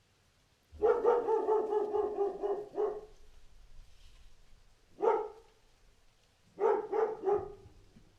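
Dog barking: a rapid string of barks lasting about two seconds, a single bark a couple of seconds later, then three quick barks near the end.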